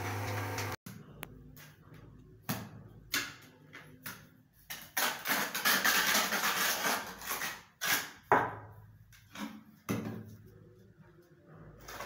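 A trowel scrapes cement tile adhesive across the back of a ceramic wall tile, with scattered sharp knocks of tile and tools. A steady motor hum stops abruptly under a second in.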